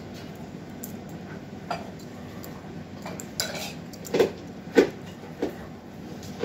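A handful of light clicks and taps as a small knife blade and small plastic parts are handled and knocked together, the loudest about five seconds in.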